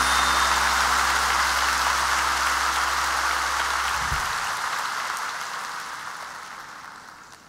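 Arena audience applauding, an even rain-like clatter, over the band's final held low chord. The chord stops with a soft low thump about four seconds in, and the applause then fades out.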